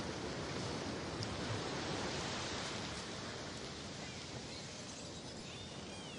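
Steady underwater rush and hiss of water heard through a GoPro's waterproof housing, with faint rising and falling spinner dolphin whistles coming in near the end.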